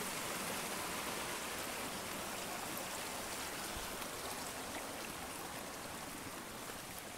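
Small mountain stream running over rocks: a steady rush of water that grows slightly fainter toward the end.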